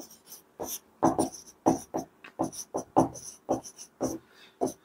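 Marker pen squeaking and scratching on a whiteboard as a word is written, in a quick run of short strokes, about two to three a second.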